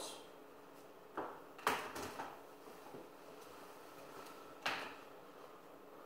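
A few sharp knocks and clatters of a computer keyboard being set down and handled on a stone countertop, over a faint steady hum.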